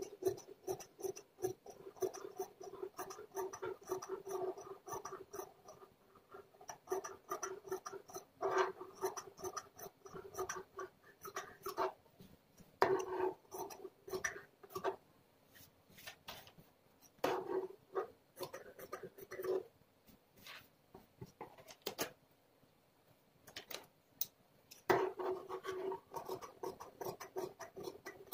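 Large tailoring shears cutting through doubled cloth, a run of rasping snips as the blades work around a curve, with a few short pauses.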